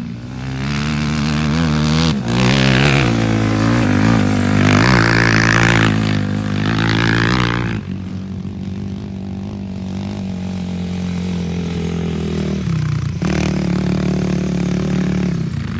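Off-road vehicle engine revving hard on the sand dunes, its pitch rising and falling for several seconds, then settling into a steadier, lower drone.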